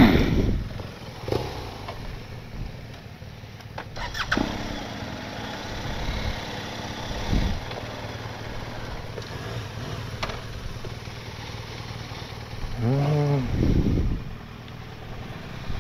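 BMW GS boxer-twin adventure motorcycle engines idling, with a brief rise and fall in engine speed about thirteen seconds in, and a couple of sharp clicks.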